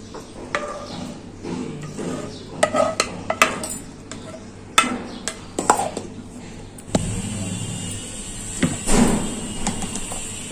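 Knocks and scrapes of a steel pan and a steel mixer-grinder jar as a thick mixture is scraped in and the plastic lid is pressed on, then, about seven seconds in, an electric mixer grinder starts and runs steadily for a couple of seconds, blending the mixture to a froth.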